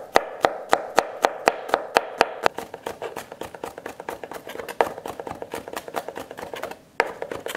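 Chef's knife chopping garlic cloves on a plastic cutting board: sharp, even knocks about four a second, then quicker, lighter chops as the garlic is minced finer. A short pause comes near the end, then one hard knock and more chopping.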